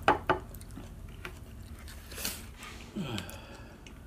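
Eating at the table: a fork clicks a couple of times against a plate, then noodles are slurped and chewed. A short, low falling sound comes about three seconds in.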